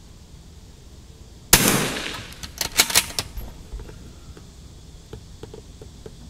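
.22 LR rifle fired once about a second and a half in, a sharp crack with a short decaying tail, followed about a second later by a quick run of sharp clicks.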